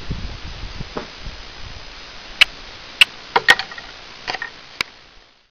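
Steady hiss with low rumble in the first second, then about six sharp clicks and knocks in the second half, a few of them close together. The sound cuts off shortly before the end.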